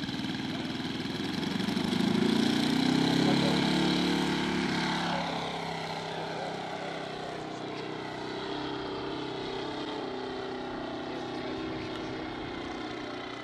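Scale model Fieseler Storch's Valach 120 inline engine opening up for takeoff, growing loudest over the first few seconds as the model climbs out, dropping in pitch about five seconds in, then running steadily as it flies on.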